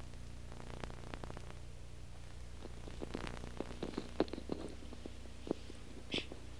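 Classroom room tone with a steady low electrical hum. Scattered small clicks and knocks come mostly in the middle as costumed children shift and settle in their seats, with a brief hiss near the end.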